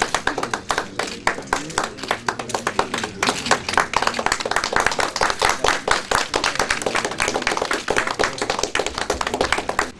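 Applause from a small gathering: many quick, distinct hand claps, steady throughout and cutting off abruptly at the very end.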